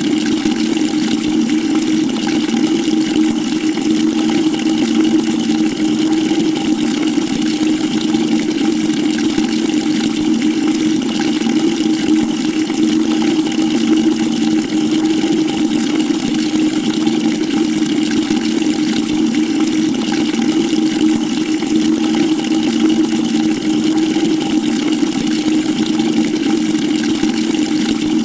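Water pouring steadily into a bucket: an even splashing rush with a constant low hum underneath, unchanging throughout.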